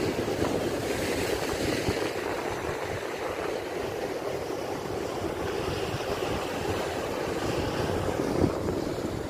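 Rough sea surf washing and breaking against a breakwater of concrete tetrapods and boulders, a steady rushing with wind buffeting the microphone. A brief thump near the end.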